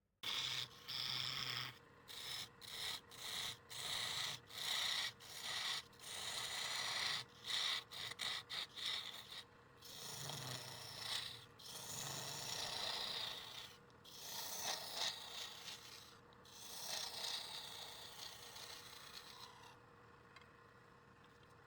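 Rough rubbing and rasping of a tool or abrasive against wood being turned, in short repeated strokes with brief gaps, then longer steadier passes that fade near the end.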